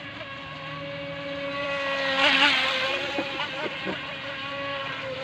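Electric motor of the iOcean Tiger Shark RC boat whining steadily as it runs on the water, growing louder to a peak a little over two seconds in with a burst of hiss, then easing back.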